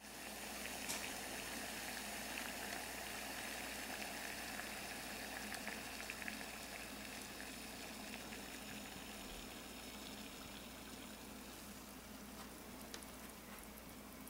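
Water boiling in a pot over a homemade water-bottle alcohol stove burning denatured alcohol. It makes a steady bubbling hiss with scattered faint ticks, slowly fading as the stove nears burnout.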